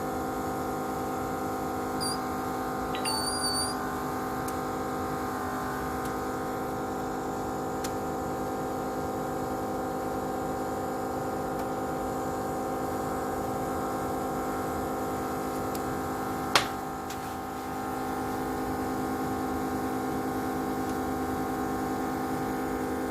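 Steady electrical hum of a phone-screen separator machine running. There are a couple of faint high chirps a few seconds in and one sharp click about two-thirds of the way through.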